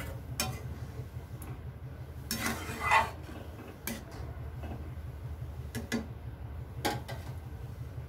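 A spoon stirring vermicelli and milk in a metal kadai, clinking against the pan now and then, with a louder scraping clatter about two and a half seconds in. A steady low hum runs underneath.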